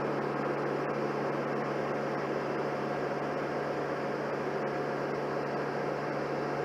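Steady mechanical running of a tractor-driven grain auger: the tractor engine turning the auger through its drive shaft gives a constant low hum under an even rushing noise, with no change in speed.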